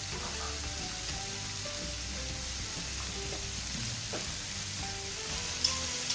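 Water spinach and aromatics stir-frying in hot oil: a steady sizzle as the greens are tossed, with one sharp knock of the utensil against the pan near the end.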